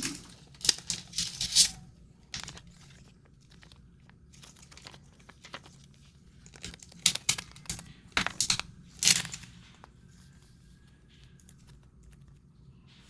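Trading card pack wrapper crinkling and tearing open, with cards being handled: a series of short, sharp rustles with quiet gaps between them.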